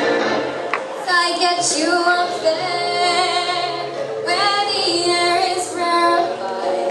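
A woman singing a song over music, in two long phrases with a short break between them.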